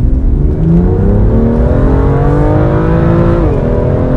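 BMW M2's turbocharged 3.0-litre straight-six accelerating hard, heard from inside the cabin. The engine note climbs steadily, drops sharply at a quick dual-clutch upshift about three and a half seconds in, then starts climbing again.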